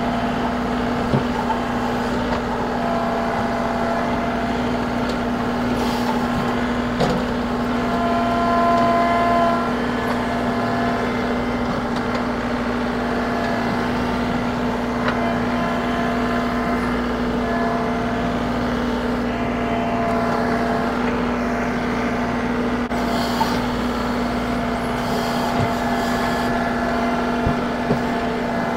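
John Deere 2038R compact tractor's three-cylinder diesel running steadily under load while its front-end loader works a large stump; higher whining tones come and go as the bucket lifts and tips, with a few short knocks of roots and dirt.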